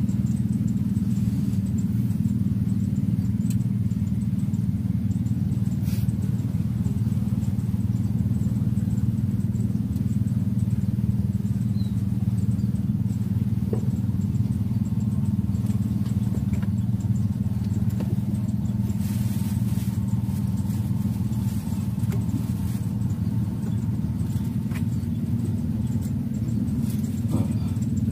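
A small engine running steadily with a low, even hum, with a few faint clicks over it.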